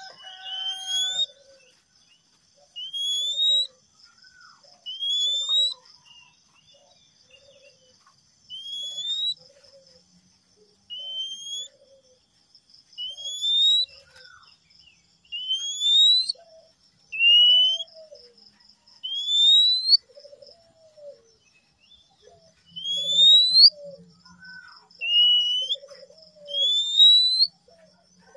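Male oriental magpie-robin (kacer) singing a string of clear, upward-sliding whistles, one every second and a half to two seconds, with softer low notes between them.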